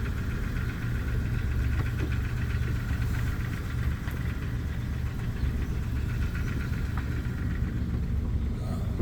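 A Jeep's engine running steadily as it drives, over a constant low road rumble.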